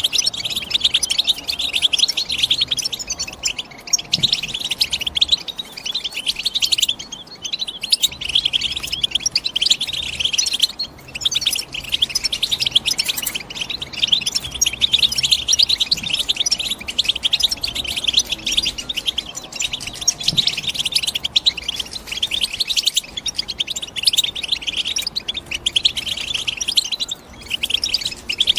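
European goldfinch song: a fast, unbroken stream of high twittering chirps and trills, broken by a few short pauses.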